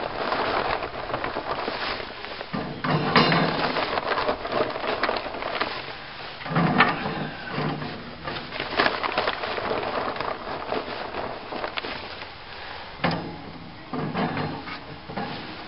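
Chunks of charcoal clattering and scraping as they are put down by hand in a smoker grill, in repeated rattling bursts that thin out toward the end.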